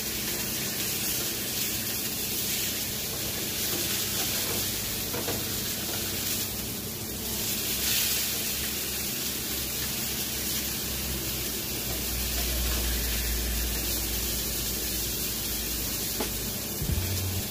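Marlin steaks frying in hot coconut oil in a pan: a steady sizzle as tongs shift the fish, briefly louder about seven seconds in.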